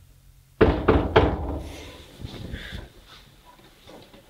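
Three loud bangs in quick succession, like heavy knocking on a wooden door, about half a second in, ringing on and fading over the next two seconds. A fainter knock follows near the end.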